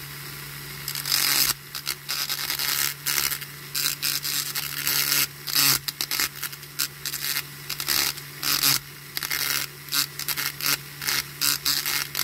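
Small handheld rotary tool running at its lowest speed with a steady hum. From about a second in, its bit grinds in many short, harsh bursts as it is pressed against the peened end of a diecast toy car's steel axle to take the wheel off.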